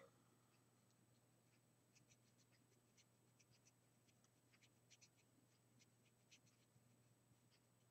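Very faint, irregular scratching ticks of a Copic alcohol marker's nib working over paper in small strokes, over a faint steady hum.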